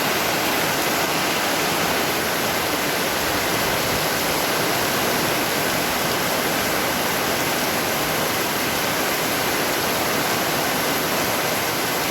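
Heavy rain pouring down in a dense, steady hiss that does not let up.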